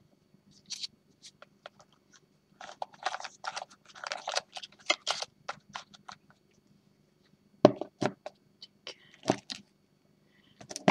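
Cardboard card boxes handled by hand: a run of small scrapes and clicks as a box insert is slid out and the lids are opened, then a few sharper knocks in the second half as the boxes are set down.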